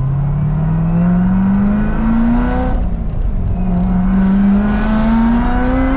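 2016 Corvette Z06's supercharged V8, heard from inside the cabin, pulling hard under acceleration with its pitch rising steadily. It drops once about three seconds in at a gear change, then climbs again.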